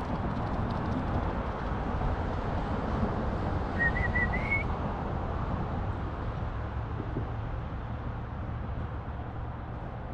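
A short warbling whistle about four seconds in, rising slightly in pitch, over a steady low rushing noise.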